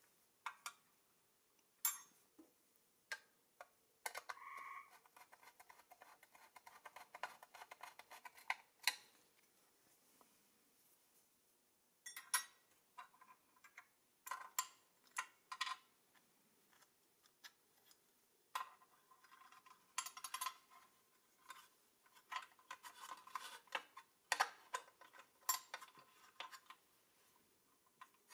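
Small metal and plastic parts of a toy car being handled and fitted together by hand on a wooden workbench: scattered light clicks and taps, with two longer stretches of scraping and rattling as a bent steel steering rod is worked into the chassis.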